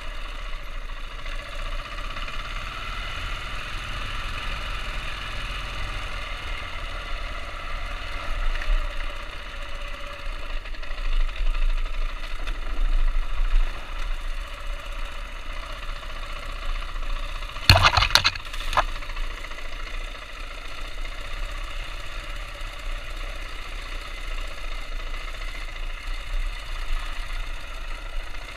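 2015 KTM 690 Enduro R's single-cylinder four-stroke engine running on a dirt trail, its note swelling and easing with the throttle. A few sharp knocks come in quick succession about two-thirds of the way through.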